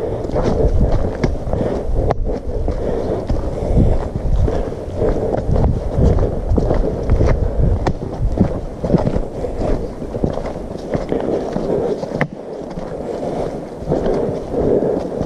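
Wind buffeting and handling rumble on a handheld camera carried by a walking hiker, with footsteps on a leafy dirt trail and a few sharp clicks. The deep rumble eases about twelve seconds in.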